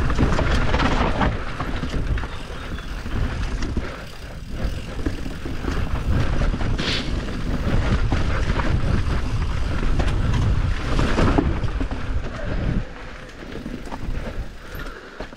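Enduro motorcycle engine revving and easing off again and again while riding a rough trail, with scattered knocks.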